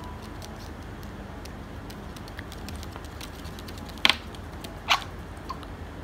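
Ringneck parakeets moving about a wooden tabletop and handling a set of keys: faint small taps and clicks throughout, with two short sharp sounds about four and five seconds in.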